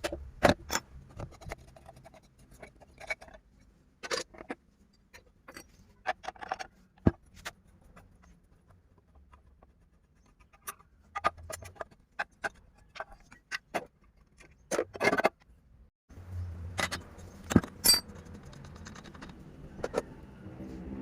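Irregular metallic clicks, clinks and knocks of tools and small metal chainsaw parts being handled by hand, in short scattered bursts with pauses between. Over the last few seconds a low steady hum lies under the clinks.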